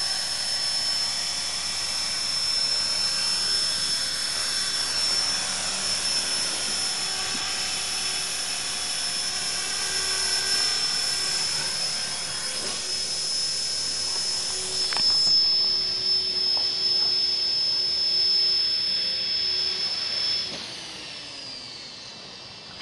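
E-flite Blade 400 collective-pitch electric RC helicopter hovering: a steady high-pitched motor and gear whine over rotor noise. Near the end the whine falls in pitch and dies away as the motor spools down.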